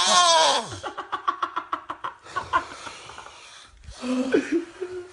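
A person's voice: a long wail that falls in pitch and stops under a second in, then a quick stuttering run of short pulses, about ten a second, and some scattered breathy vocal sounds.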